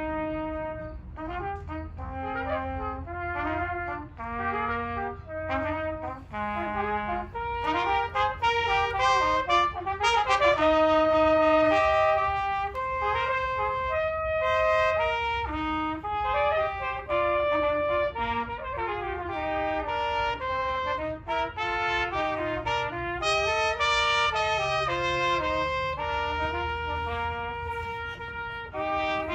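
Trumpet and trombone playing a melody of short and held notes, with a low steady hum underneath.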